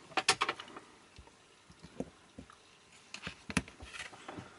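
Sharp plastic clicks and rattles of a USB plug and the power bank's case being handled and fitted together. There is a quick run of clicks just after the start and another few clicks about three seconds in, the loudest at about three and a half seconds.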